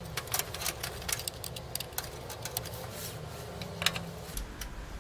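Irregular clicks and taps of a 2.5-inch SSD and its SATA cables being handled and plugged in inside a PC case, with one louder knock near four seconds in.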